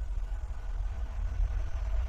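Approaching freight train: a steady low rumble with a faint high whine over it.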